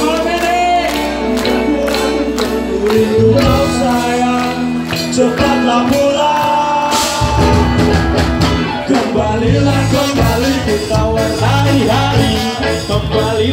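A ska band playing loud, live, with a steady drum beat under long held notes.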